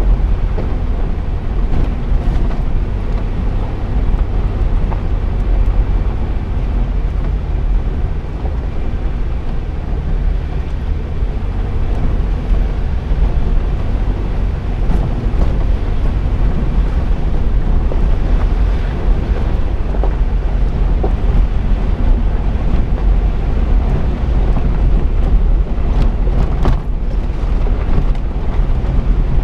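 Jeep driving along a dirt trail: a steady low rumble of engine and tyres, with wind buffeting the microphone and a few light clicks near the end.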